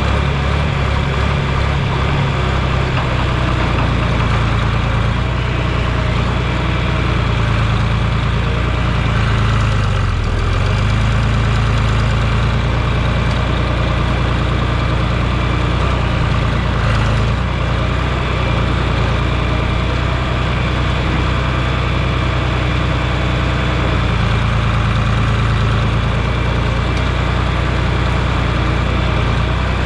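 Large engine running steadily, with a brief drop and recovery in engine speed about ten seconds in.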